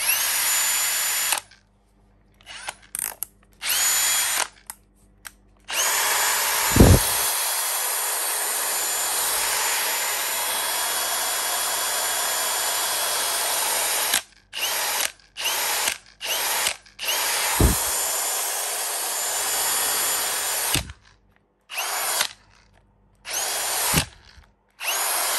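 Hilti SF 6H-A22 22V brushless cordless hammer drill-driver running free, unloaded, in a series of trigger pulls. Short bursts alternate with two longer runs of several seconds, and each one spins up to a steady high whine. A few brief knocks come during the runs.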